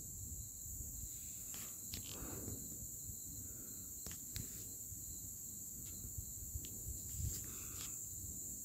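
Night insect chorus: a steady high-pitched trilling, with about eight short clicks scattered through it.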